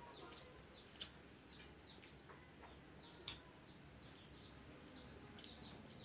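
Faint chirping of small birds: short falling notes repeated every half second or so. Two brief clicks sound about a second in and just past three seconds in.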